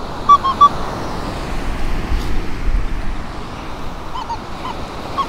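Nokta Legend metal detector giving a few short beeps at one mid pitch about half a second in, then a run of wavering tones near the end, over steady wind and surf noise. The target reads 27–28 on the detector, probably a pull tab.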